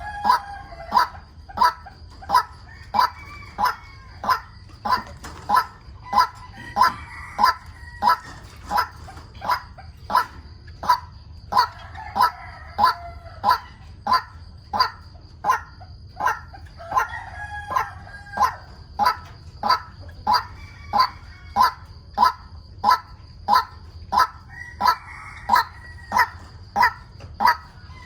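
White-breasted waterhen calling: a monotonous croak repeated evenly about one and a half times a second, with a busier, stuttering burst of calls every few seconds.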